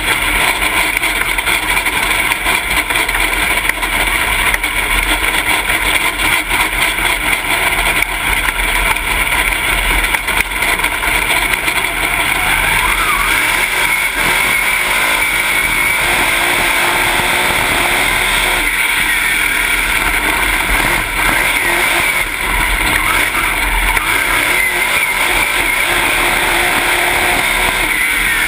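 Dirt late model race car's V8 engine running hard at speed, heard from inside the cockpit, with wind and chassis noise mixed in.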